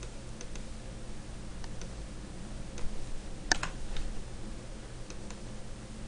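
Sparse clicks of a computer keyboard and mouse, a single key or button press every second or so, with a louder double click about three and a half seconds in. A steady low hum runs underneath.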